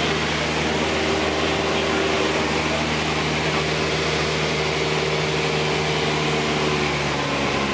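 Single-engine light airplane's piston engine and propeller droning steadily, heard inside the cabin in flight, with the low engine note shifting near the end.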